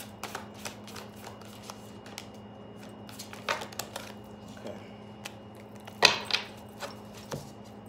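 A deck of tarot cards being shuffled by hand: scattered soft clicks and card rustles, with a louder rustle of cards about six seconds in.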